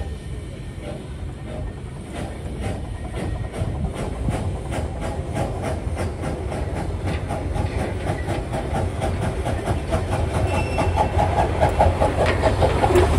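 Billy Jones Wildcat Railroad No. 2, an 18-inch gauge live steam locomotive, running toward and past at close range, with a steady beat of exhaust chuffs and wheel clicks over a low rumble, growing louder as it nears.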